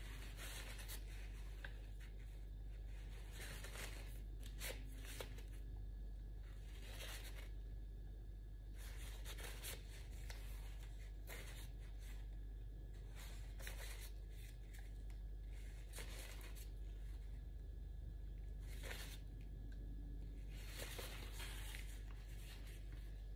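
Faint, short scratchy strokes every second or two as the blunt end of a wooden paintbrush handle is dragged through wet pour paint on a stretched canvas, over a steady low hum.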